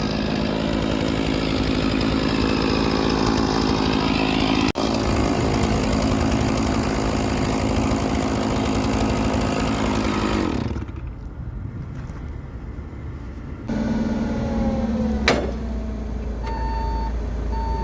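A heavy machine's engine running steadily, dropping away for a few seconds past the middle and then coming back, with a sharp click and a couple of short beeps near the end.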